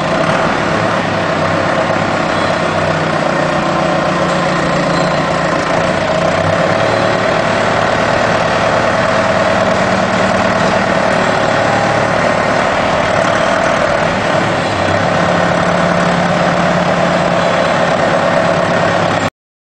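Forklift engine running steadily; the sound cuts off suddenly near the end.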